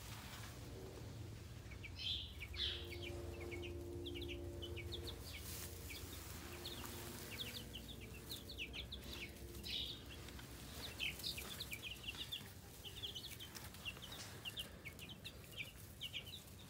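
A brooder of week-old chicks, six Cornish meat chicks and six egg-layer chicks, peeping: many short, high cheeps, quick and overlapping, over a low steady hum.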